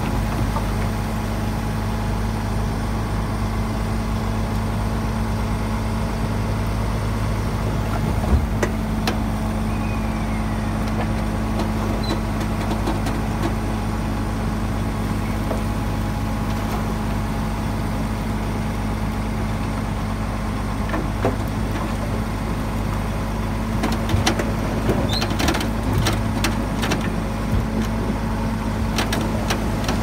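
Heavy diesel engine of earthmoving machinery running steadily, with scattered short knocks and clicks that come more often near the end.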